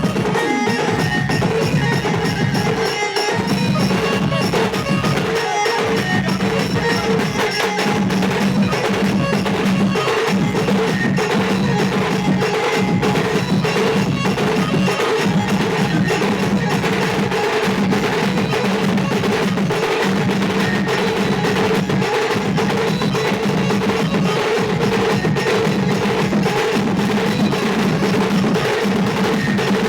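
Dance music driven by heavy drums and percussion, with fast, dense drum strokes over sustained tones, playing without a break.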